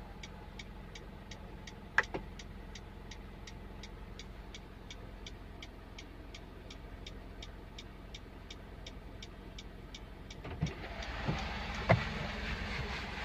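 Turn-signal indicator of a Mitsubishi Pajero Sport ticking steadily in the cabin, about two and a half ticks a second, over a low hum, with a single click about two seconds in. About three seconds before the end the ticking stops and a louder noise with a few knocks takes over.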